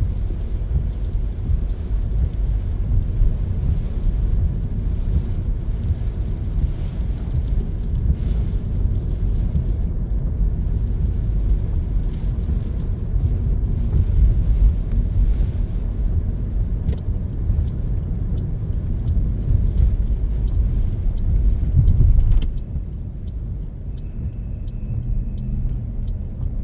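Car driving on a wet road in heavy rain: a steady low road rumble under a hiss of tyres and rain. The hiss cuts out suddenly about 22 seconds in, leaving a quieter rumble.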